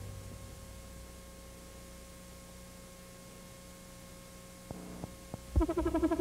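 The tail of a song dying away, then a faint steady electrical hum in the gap between numbers. Near the end come three quick, evenly spaced clicks and a thump, and synthesizer music with a fast pulsing beat starts.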